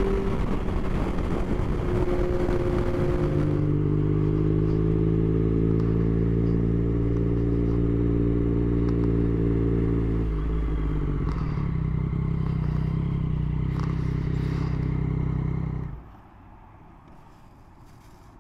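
Yamaha Tracer 9 GT's 890 cc three-cylinder engine running under a rush of wind noise at first, then settling to a steady engine note about three seconds in. The note drops to a slightly lower steady pitch about ten seconds in, and the sound cuts off suddenly about sixteen seconds in, leaving only faint background.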